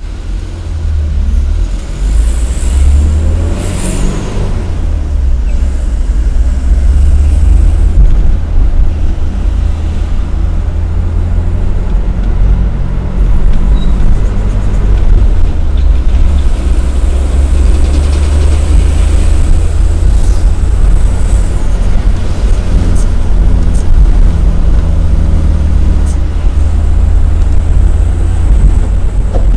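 Isuzu Elf minibus's diesel engine and road noise at speed: a heavy, steady low rumble with engine tones that shift up and down as it accelerates.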